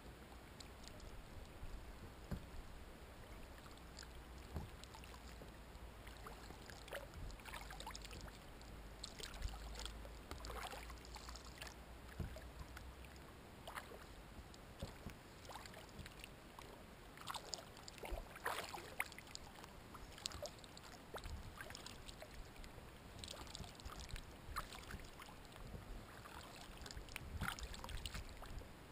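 Kayak paddle dipping into calm water, the small splashes and drips of the strokes coming in clusters every few seconds.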